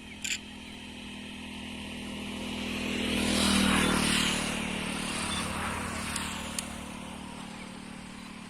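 A motor vehicle passing by: its engine hum and road noise swell to a peak about three and a half seconds in, then fade away.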